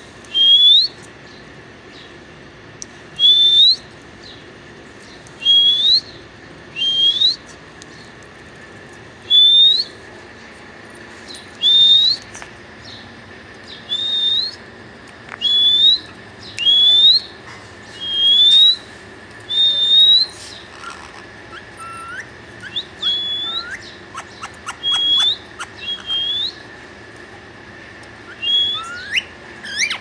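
Young green parakeet calling: short, high whistles that sweep upward, repeated every second or two. After about twenty seconds they give way to lower rising calls and quick clicking chatter, with a flurry of calls near the end.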